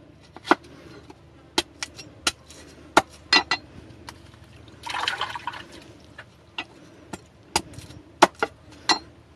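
Cleaver knocking against a wooden block as vegetables are chopped: about a dozen sharp, irregular knocks, with a brief rushing sound about five seconds in. A small stream trickles underneath.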